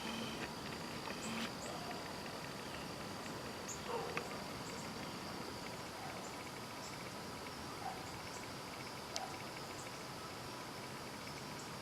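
Evening insect chorus of crickets, a steady high trill with short chirps repeating about once a second, with a few faint clicks.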